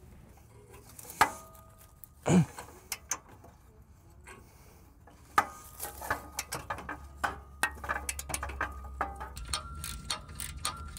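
Two sharp metal clanks with a brief ring in the first few seconds, then a hand ratchet clicking in quick, uneven runs as a socket turns an exhaust flange nut.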